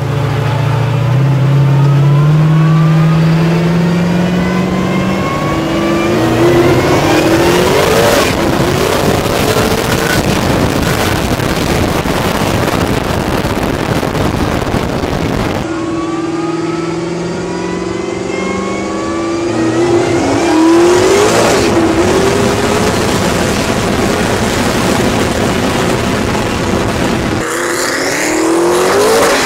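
Off-road prerunner truck's engine accelerating hard up through the gears, its pitch climbing and dropping back at each upshift, heard from inside the cab. The run breaks off about halfway and starts again with another climb and more shifts.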